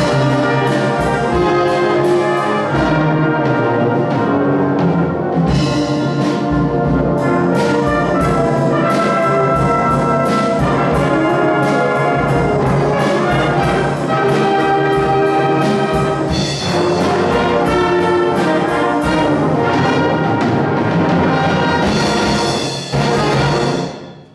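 Brass band with drum set playing a loud, rhythmic passage, the drums marking a steady beat under the brass. The music stops abruptly on a final chord near the end.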